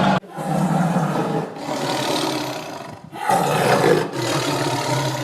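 Tiger roaring: two long, rough roars back to back, with a brief break about three seconds in.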